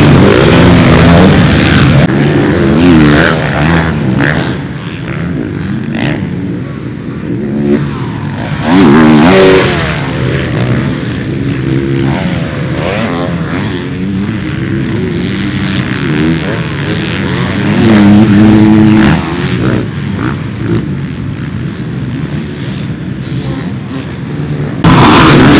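Motocross dirt bike engines revving up and down as bikes ride the track, swelling louder as a bike passes close about 9 seconds in, about 18 seconds in, and again near the end.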